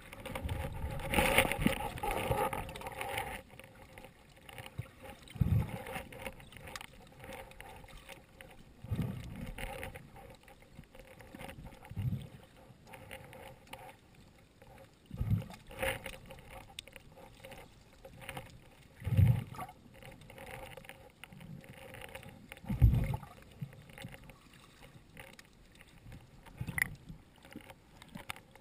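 Muffled underwater sound of sea water moving over a shallow rocky bottom, heard from inside a camera's waterproof housing, with a low surge every three to four seconds.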